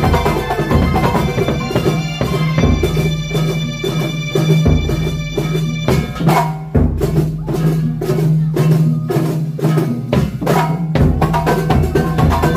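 Kuntulan dance music led by drums playing a fast, dense rhythm with melodic instruments over a steady low tone. About halfway through the melody drops out and only heavy drumming is left for several seconds, then the melody comes back.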